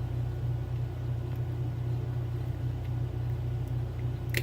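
Steady low hum with a few faint, light clicks.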